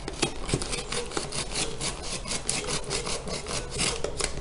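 Utility knife blade cutting along the edge of a cardboard shipping box, slicing through the packing tape and cardboard in a quick run of short scraping strokes, several a second.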